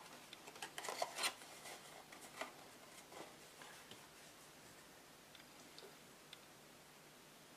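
Cardstock gift box being handled and folded shut by hand: a cluster of light paper rustles and taps in the first two and a half seconds, then a few faint taps.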